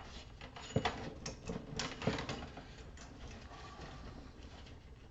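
Scattered light clicks and knocks of small metal scrap parts being handled and sorted, with a couple of sharper knocks in the first half.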